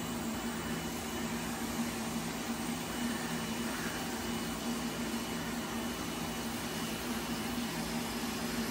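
Arc welding of the front weight plate's mounting brackets: a steady welding hiss with a low hum underneath.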